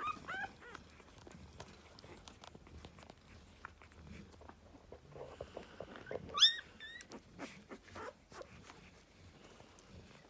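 Cane corso puppies squeaking: short high squeals right at the start and a louder one about six and a half seconds in, with soft clicks and rustling in between.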